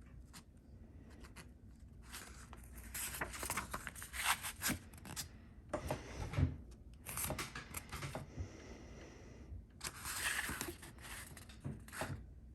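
Folded paper instruction manual being handled and unfolded, rustling and crinkling in several bursts with a few light clicks.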